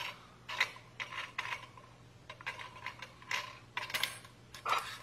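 Thin metal pot-stand plates of a titanium alcohol stove being handled and slotted together: a scattered string of light metallic clicks and taps, some with a short ring.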